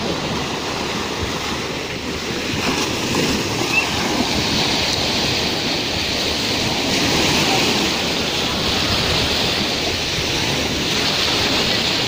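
Small sea waves breaking and washing up a sandy shore with fine pebbles, a steady rush of surf that swells and eases.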